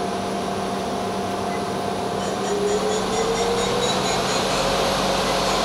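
DMG MORI NLX-2500/500 CNC turning center's spindle running at about 2,000 RPM with a steady hum, then speeding up with a rising whine a little over two seconds in, on its way to 3,000 RPM.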